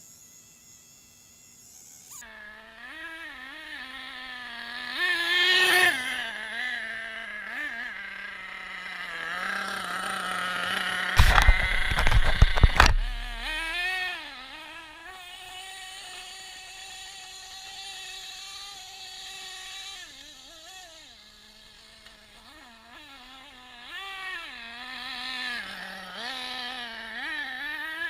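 Nitro engine of a 1/8-scale Losi 8ight-T truggy revving up and down as it is throttled on and off. A quick run of loud knocks comes about 11 seconds in.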